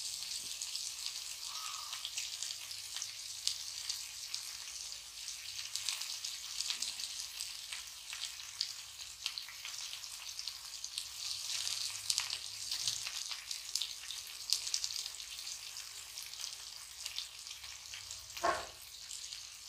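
Pomfret steaks sizzling and crackling steadily in hot oil on an iron dosa tawa. A spoon spreading chutney over the fish scrapes or knocks against the pan now and then.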